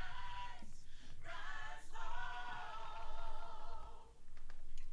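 Gospel choir singing in parts. The voices hold a sustained chord, then cut off about four seconds in.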